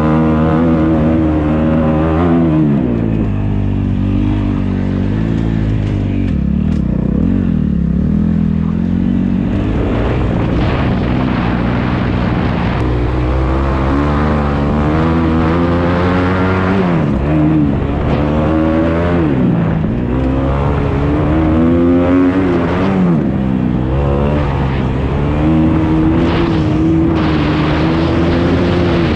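Motocross dirt bike engine being ridden hard, its pitch repeatedly climbing under throttle and dropping off again.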